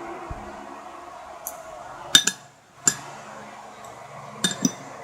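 Hard eating utensils clinking sharply against glass or ceramic tableware, in several separate ringing strikes, two of them close together about two seconds in and another pair near the end, over a steady low hiss.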